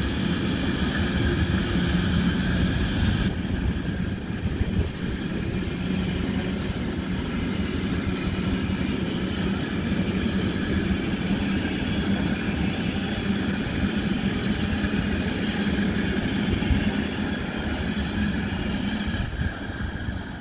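Container freight train passing close by: a steady rumble and clatter of wagon wheels on the rails, with a steady low hum, easing off a little near the end as the last wagons go by.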